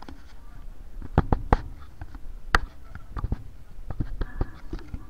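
Irregular knocks and clicks close to the microphone over a low rumble: handling bumps on a hand-held camera, the sharpest about two and a half seconds in.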